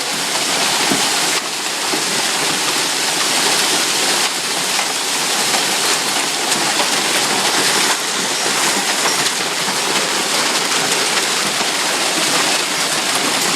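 Large hailstones coming down hard, a dense, steady noise of countless impacts.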